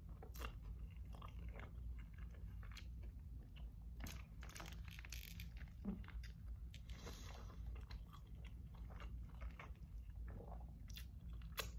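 Close-up eating sounds: chewing a mouthful of tortilla chip and burrito, with small crunches and wet mouth clicks, and a bite into the burrito about six seconds in.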